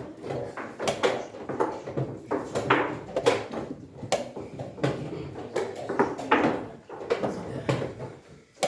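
Chess pieces clacking down on boards and chess clock buttons being pressed as several games get under way: irregular sharp knocks, about two a second, over a low murmur of the room.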